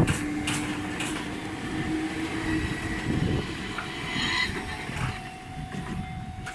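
Enoden electric train passing the level crossing: a low rumble with wheels clacking over rail joints, easing off after about three seconds.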